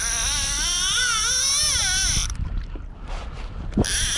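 Fishing reel's drag screaming as a big hooked fish strips line off against it. It makes a high, wavering whine that stops a little over two seconds in and starts again near the end.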